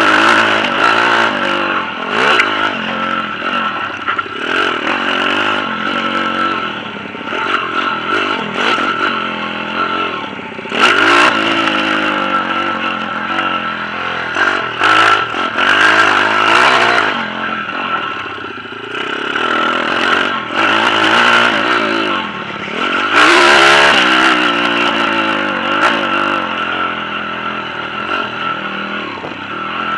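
Pit bike's single-cylinder engine revving up and down repeatedly as it is ridden along a dirt track, with a few louder, noisier surges.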